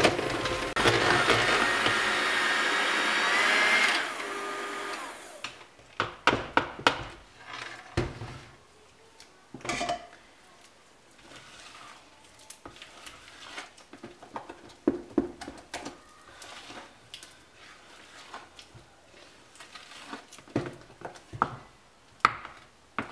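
Electric hand mixer running, its beaters whirring through thick cocoa cake batter in a plastic bowl, then switched off about four seconds in and winding down. After that comes a silicone spatula scraping and knocking against the bowl in scattered short clicks.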